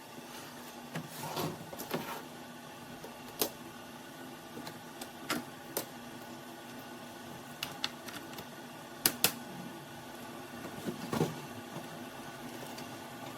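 A small motor humming steadily, with about nine sharp clicks and knocks scattered through it, two of them close together about nine seconds in.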